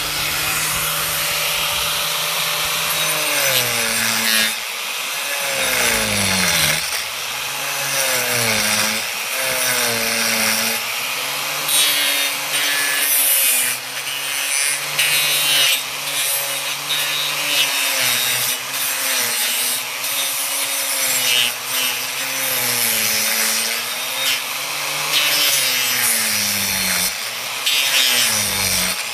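Makita angle grinder carving the dead wood of a Chinese elm: the motor's whine sags in pitch each time the disc bites into the wood and climbs back as it eases off, again and again, over the rasp of wood being ground away.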